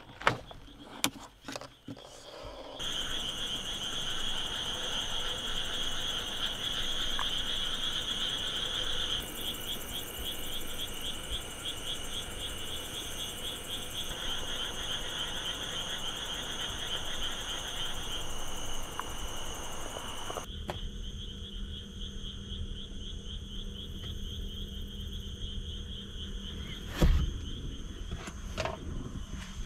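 Camper door latch clicking open, then a dense chorus of night insects chirping steadily, with a rapid pulsing trill on top for several seconds. About twenty seconds in, the chorus gives way to a quieter indoor sound with a low hum, and there is a single thump near the end.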